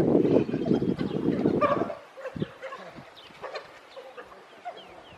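African wild dogs calling with many short, high, falling twitters and chirps, over a loud low rumble that cuts off abruptly about two seconds in.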